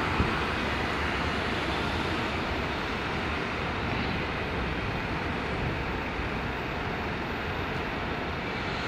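Steady city street traffic noise, an even rumble and hiss of vehicles, with a brief knock just after the start.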